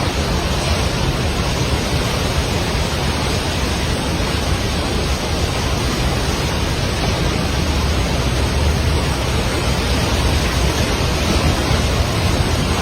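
Rushing floodwater: a loud, steady noise without a break.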